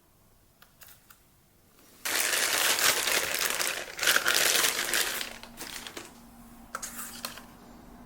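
Packaging crinkling as it is handled during the pistol's unboxing: a few small clicks, then about three seconds of loud, dense crinkling starting about two seconds in, fading to a few softer rustles.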